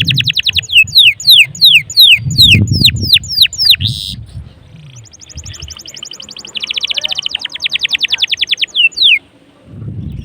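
Domestic canary singing: fast rolling trills of rapidly repeated notes alternating with runs of quick downward-swooping whistles, easing off briefly in the middle before another long trill.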